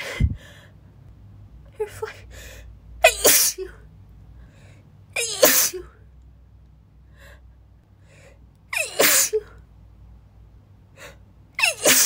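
A woman sneezing in a fit, four loud sneezes a couple of seconds apart, with short gasping breaths between them.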